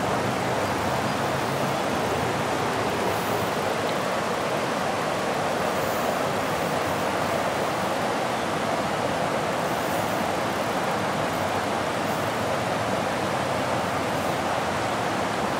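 Steady rush of river water pouring over a weir and through whitewater rapids, an even, unbroken noise.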